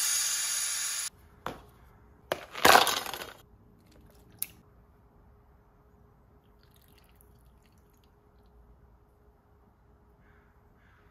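Kamira stovetop espresso maker hissing loudly as steam blows through the spent coffee at the end of the brew. The hiss cuts off suddenly about a second in and comes back in two short bursts, followed by a single sharp click; after that only a faint steady hum.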